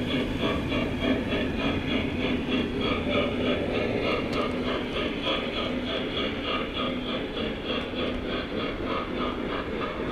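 O-scale model train running along the layout track: a quick, steady rhythmic clicking over a continuous low running hum.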